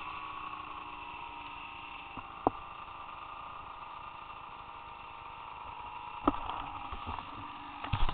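Distant drone of an Arctic Cat ZRT triple snowmobile's three-cylinder two-stroke engine, its pitch wavering slightly. Two sharp clicks of camera handling, and loud knocks near the end as the camera is handled.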